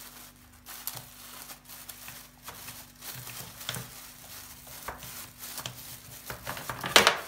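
Plastic bag crinkling and crackling as a glass is pressed down through it onto a crumbly digestive-biscuit and butter base, compacting it. Scattered small crackles, with one louder one near the end.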